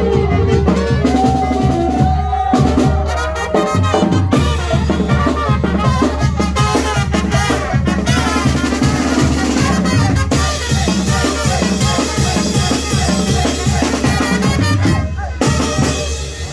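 Latin dance music with a steady drum beat and bass, played over a sonidero sound system.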